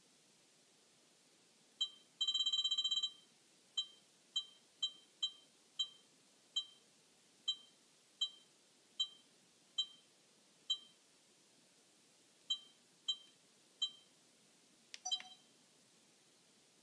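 Sony HDR-CX220 Handycam camcorder beeping as its menu is operated while setting the date and time: one short beep, a quick burst of rapid beeps for about a second, then a string of single high beeps at uneven intervals, one per press, and a slightly different double beep near the end.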